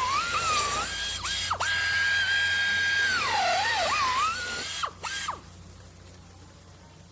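A high-speed electric power tool whining, its pitch sagging several times as it is pressed into the work and recovering. It switches off a little over five seconds in.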